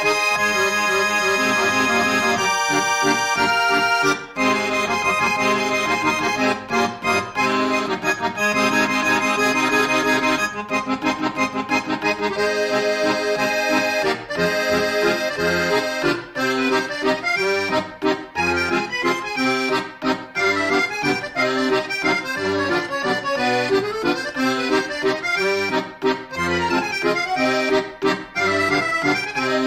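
Instrumental background music: long held chords at first, with faster-moving notes from about the middle on.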